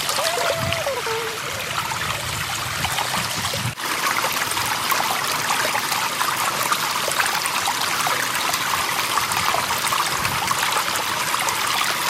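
A small stream trickling and running steadily.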